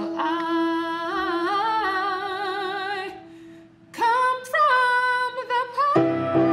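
Woman singing long held notes with vibrato over a steady sustained accompanying note, a short pause about three seconds in, then a second phrase, with fuller accompaniment coming in near the end.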